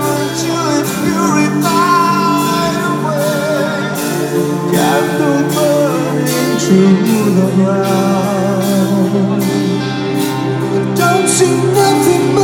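A symphonic power metal band playing live, with sung vocals over held guitar and keyboard chords and steady drums.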